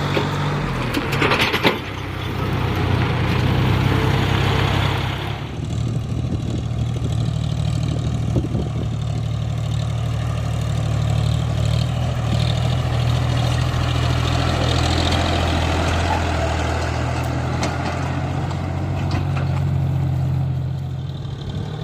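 Heavy diesel engine of earth-moving machinery running steadily under load. For the first five seconds or so a harsher rushing noise rides over it, with a sharp knock about a second and a half in.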